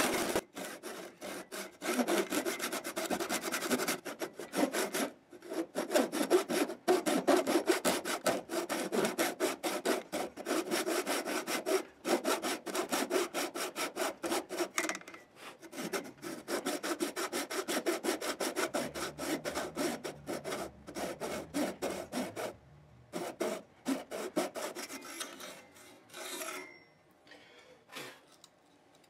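Thin hand saw cutting wood at the neck joint of a Martin D-41, undercutting the neck heel for a neck reset, in quick short back-and-forth strokes. It pauses briefly twice and dies away a couple of seconds before the end.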